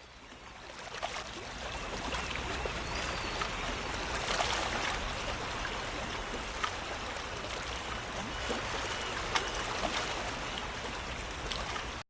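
Running-water sound effect, like a stream, fading in over the first couple of seconds and then flowing steadily with scattered small splashes and drips, before cutting off abruptly at the end.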